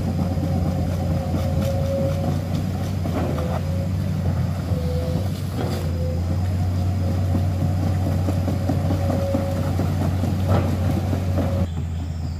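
Komatsu PC210 hydraulic excavator's diesel engine running steadily with a low hum and a wavering whine above it, with a few short knocks from the machine. Near the end the sound turns quieter and more distant.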